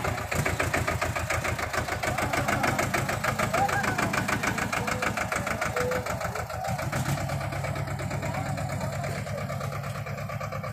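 A small diesel farm tractor's engine running with a rapid, even knock as it hauls a heavy load of a large metal drum and riders up a steep stone footpath. It grows slightly fainter in the second half as the tractor moves off.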